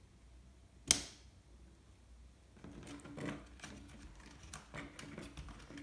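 A single sharp plastic click about a second in, then a run of smaller clicks and rustles as the dishwasher's wiring harness and plastic pump parts are handled and connectors pushed on.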